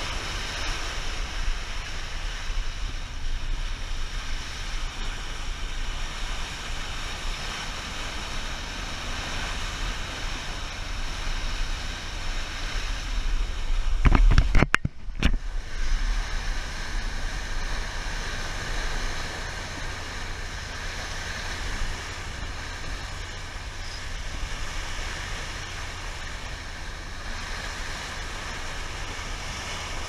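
Wind buffeting the microphone over water rushing along a moving boat's bow, with a faint steady whine underneath. About halfway through comes a louder burst of knocks and splashes lasting about two seconds.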